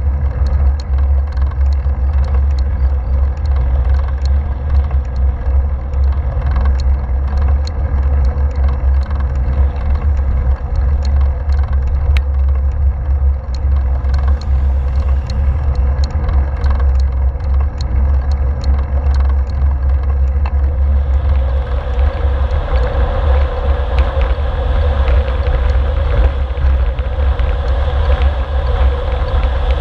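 Wind rushing over a handlebar-mounted GoPro's microphone on a road bike at speed: a loud, steady, buffeting rumble. About two-thirds of the way in it grows hissier and fuller as the bike starts down the Exelberg descent.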